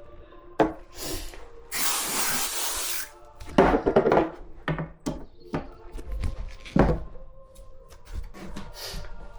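Background music over wooden furniture panels being handled, with several sharp knocks and rubs. A loud hiss lasts over a second about two seconds in.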